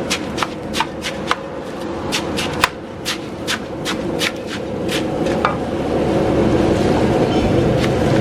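Kitchen utensils knocking during street-food cooking: a quick run of sharp taps, about two or three a second, that thins out after about five seconds, over a steady low hum.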